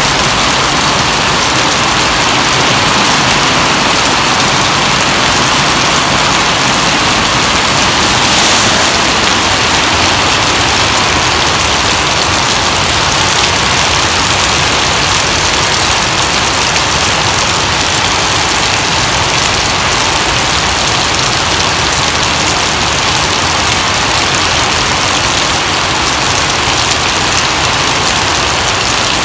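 Heavy rain pouring steadily onto wet pavement: a dense, even hiss that holds unchanged.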